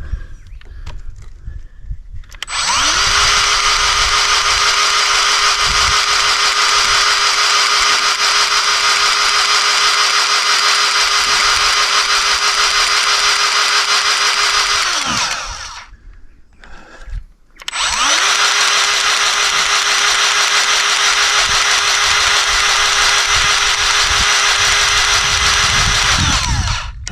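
Battery-powered grease gun motor running in two long bursts. Each burst spins up to a steady whine and winds down again: about thirteen seconds, a short pause, then about nine seconds more.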